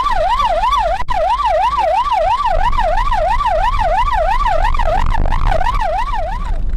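Police siren wailing in a fast yelp, rising and falling about four times a second, over the pursuing car's engine and road noise; the siren cuts off near the end.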